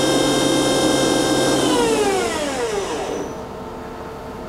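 Main spindle of a Nakamura-Tome TW-20MM CNC turning center whining steadily at 2700 RPM, then spinning down to a stop, its pitch falling away over about a second and a half from just under two seconds in. A quieter steady machine hum remains after it stops.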